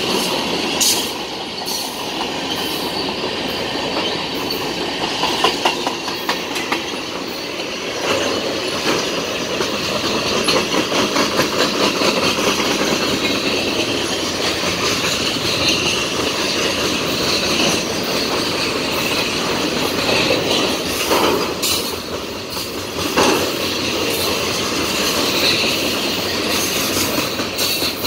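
Freight cars of a passing train rolling by at close range: covered hoppers, then loaded centerbeam lumber flatcars. Their steel wheels clatter steadily over the rail joints, with a high wheel squeal coming and going.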